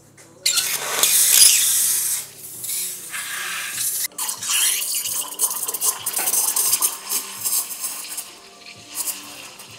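Rancilio espresso machine's steam wand frothing milk in a pitcher. A loud hiss starts suddenly about half a second in and is loudest for the first couple of seconds. It then goes on unevenly, rising and falling as the milk is stretched, breaks off for an instant about four seconds in, and eases near the end.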